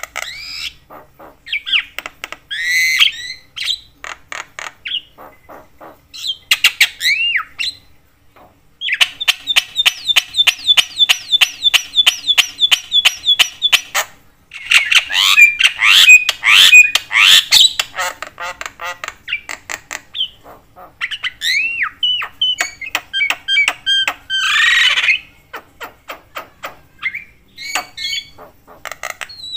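Javan myna (jalak kebo) calling in full, chattering voice: harsh squawks, clicking notes and short whistled glides in quick succession. Near the middle it runs off a fast, even string of clicking notes, about five a second, for some five seconds.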